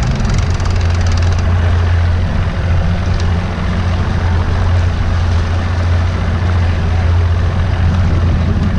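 Fishing boat's engine running at a steady low drone, with a rushing of wind and choppy water over it.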